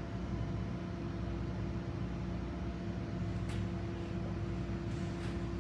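Steady electrical machine hum with a few faint clicks.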